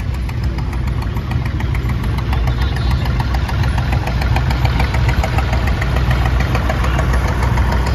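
Red Renault tractor's engine running at low revs as it drives slowly up and past, a steady rumble with even firing pulses that grows louder as it nears.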